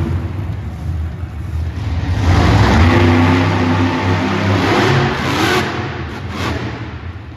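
Monster truck engine revving hard while climbing onto and wheelieing over crushed cars. It builds to its loudest about two seconds in and eases off after about five seconds.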